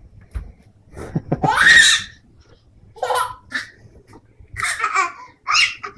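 A young child laughing in several bursts, the loudest about one to two seconds in.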